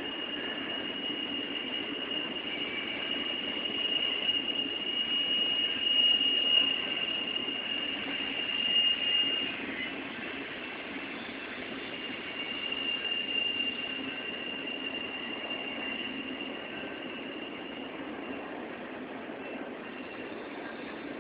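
Union Pacific double-stack intermodal train's railcar wheels rolling past on the rails, with a high, steady metal-on-metal wheel squeal that breaks off about halfway through and comes back for several seconds.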